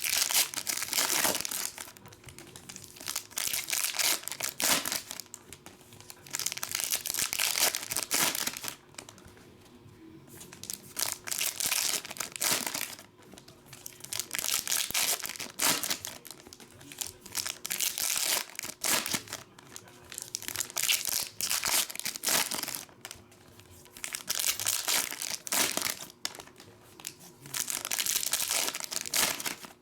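Wrappers of Donruss Optic basketball card packs crinkling and tearing as the packs are ripped open by hand. The sound comes in irregular bursts of a second or two with short pauses between them.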